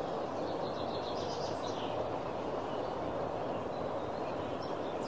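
Outdoor ambience: a steady rushing hiss with faint bird chirps over it, including a quick run of short chirps about a second in.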